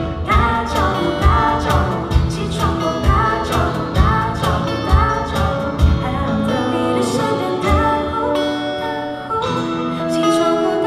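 A live band playing a song: sung vocals over guitar and a drum kit. The drum beat thins out about six seconds in, while the singing and held chords carry on.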